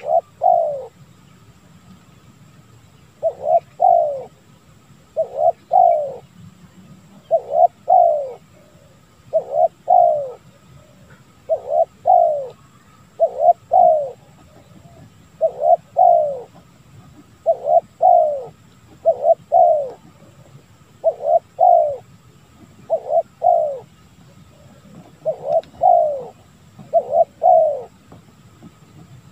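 Spotted dove (tekukur) cooing over and over: a short phrase of two or three falling coos roughly every two seconds, with no long pause.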